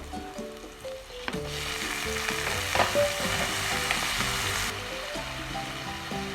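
Food frying in hot oil: a loud sizzle starts suddenly about a second in and cuts off abruptly about three seconds later, over background music.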